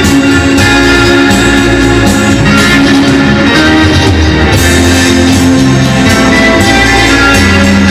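Rock and roll record playing loudly, with guitar prominent.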